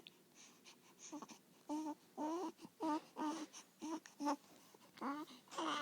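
Baby squeaking and babbling: a string of about nine short, high-pitched vocal squeaks, some bending up or down in pitch.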